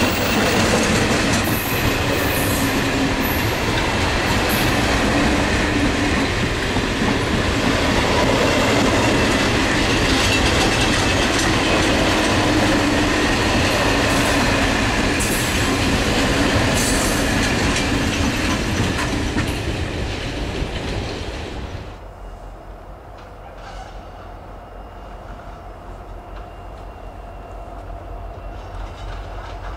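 Container freight train's wagons rolling past at speed, with steady whining tones and sharp clicks over the rolling noise. The noise falls away suddenly about 22 seconds in as the last wagon clears, leaving a faint hum.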